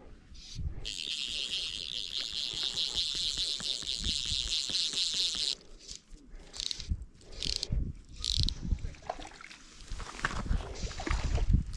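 Fly reel's click ratchet buzzing steadily for about five seconds and stopping abruptly, followed by a few short zips of fly line being stripped in by hand, with low handling knocks near the end.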